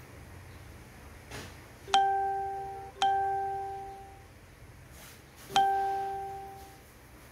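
A bell-like chime rings three times on the same note: two strikes about a second apart, then a third about two and a half seconds later, each ringing out and fading over about a second. A soft knock comes just before the first strike.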